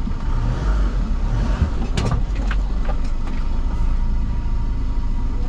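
Vehicle engine running with a steady low rumble, heard from inside the cab as it creeps forward on a ferry's car deck. A few sharp clanks come about two seconds in.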